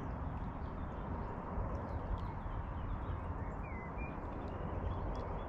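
Steady low rushing outdoor noise of wind and water at the lakeside, with a few faint bird chirps about three and a half to four seconds in.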